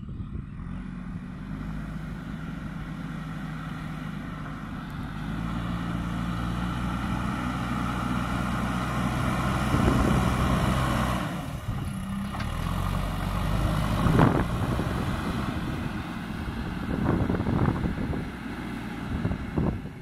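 JCB 3DX Super backhoe loader's diesel engine working under load as it pushes soil with its front bucket, getting louder as it nears. Its note dips briefly about eleven seconds in, and a few short knocks come in the second half.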